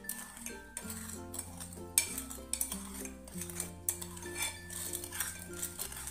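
Steel spoon stirring water in a stainless steel bowl, clinking against the bowl's sides at irregular moments, the loudest clink about two seconds in, while sugar and citric acid are dissolved. Background music plays throughout.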